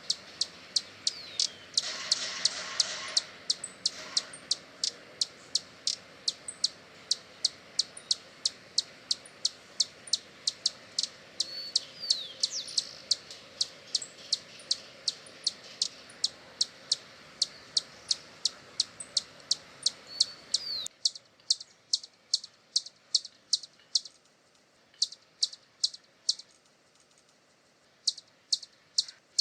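Hummingbird giving a long, regular series of high, sharp chip notes, about three a second, with a few short whistled slides among them. The background hiss drops away suddenly about two-thirds of the way through, and the chips pause briefly twice near the end.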